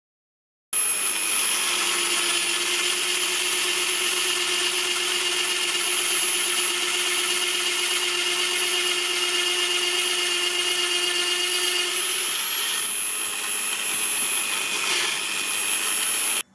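Bosch PBD 40 bench drill press running at its low speed (about 500 rpm), boring a 15 mm Forstner bit into a 5 cm wooden board: a steady motor and gear whine with a high-pitched tone over the cutting noise. It starts suddenly about a second in, a lower tone drops out about 12 seconds in, and it cuts off abruptly near the end.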